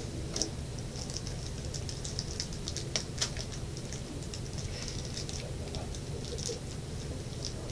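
Crinkling and sharp little clicks of a small plastic toy wrapper being picked at and torn open by hand, in irregular bursts.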